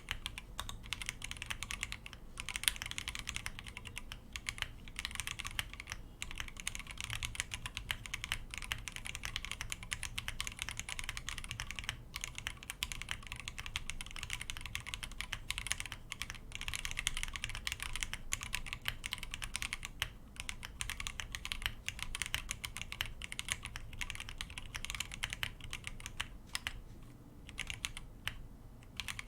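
Steady, fast typing on an Akko MOD 005 mechanical keyboard with stock, unlubed Akko Demon switches on an FR4 plate and Akko Psittacus keycaps: a dense run of key clicks. It breaks off briefly a couple of times, with a longer pause near the end.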